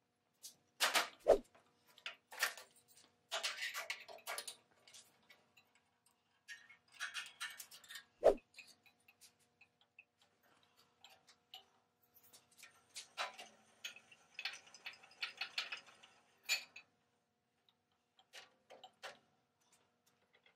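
Homemade steel bench vise and steel pipe handled on a steel table: two heavy metal clunks, about a second in and about eight seconds in, amid bursts of light metallic clicking and rattling as the vise's rebar screw handle is turned to work the jaws.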